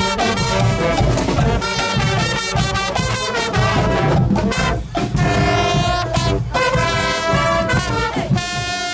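A brass band playing live, with horns and drums.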